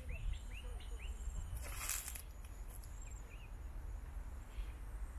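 Outdoor wetland ambience: scattered short bird chirps over a steady low wind rumble on the microphone, with a brief rush of noise about two seconds in.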